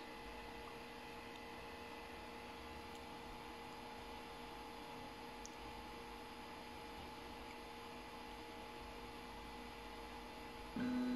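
Faint steady electrical hum from the idle 3D-printer pick-and-place machine, with a few steady tones in it. Near the end a louder steady hum starts.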